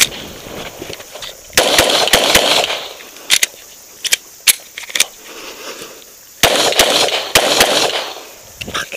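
Handgun shots fired in quick pairs and short strings during an IPSC stage run. Two stretches of loud rushing noise come about a second and a half in and again about six and a half seconds in.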